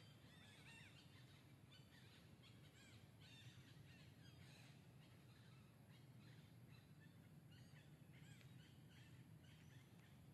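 Near silence, with faint, short, high-pitched animal chirps scattered throughout over a low steady hum.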